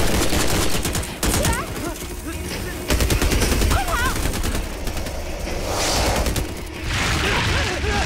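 Rapid automatic rifle fire from several guns, in volleys of quick shots. The heaviest bursts come at the start and again about three seconds in.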